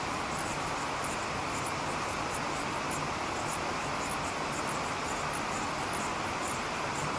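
Insects chirping: short, high chirps repeating evenly a little under twice a second over a steady hiss.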